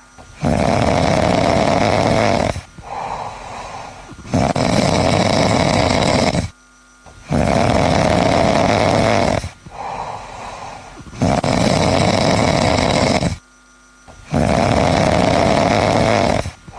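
Loud staged snoring for a sleeping lion: five long snores of about two seconds each, coming roughly every three seconds, with softer breaths between some of them.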